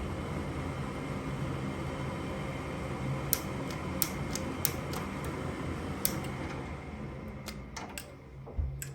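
Gas furnace running with a steady fan hum, its burner not yet lit, while a series of sharp clicks sounds from about three seconds in, more closely spaced near the end. The hum drops in level just after eight seconds.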